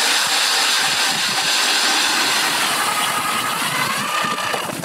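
Power ice auger boring a hole through lake ice: a steady grinding hiss of the blades shaving ice, with a faint motor whine.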